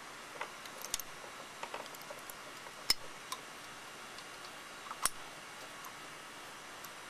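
Scattered small clicks and taps of hands handling a lawnmower carburetor and its fuel lines while refitting it, with sharper clicks about one, three and five seconds in.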